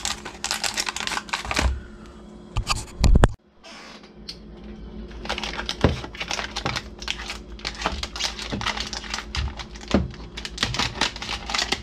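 Clear plastic wrapping crinkling and crackling as it is handled, cut with a utility knife and peeled off a chainsaw cylinder. A few dull knocks on the workbench break in; the loudest comes about three seconds in, and the sound drops out for a moment just after it.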